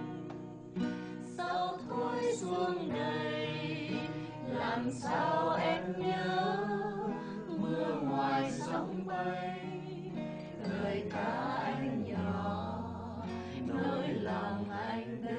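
Music: a slow ballad in a passage without words, its melody carried in long, wavering notes.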